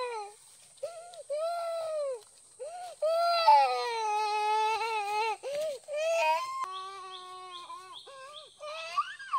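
Young child crying: long wailing cries that rise and fall in pitch, in bouts with short breaks between.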